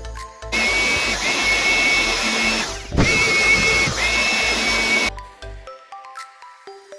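A small electric cleaning tool's motor whining with a steady rush of air as it cleans out PC parts, run in two stretches with a brief break about three seconds in. Background music plays before and after.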